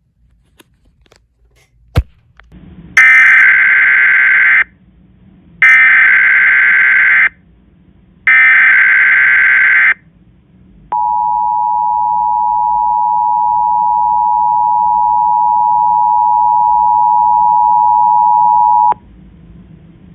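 Emergency Alert System broadcast opening: three short bursts of SAME header data, each about a second and a half long, then the steady two-tone attention signal held for about eight seconds, growing slightly louder, before it cuts off. A single click comes about two seconds in.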